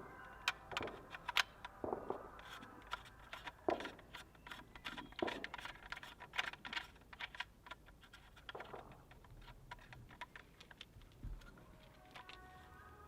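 Irregular light clicks and ticks of hands handling an airsoft gun's parts, as a muzzle amplifier is being threaded onto the barrel.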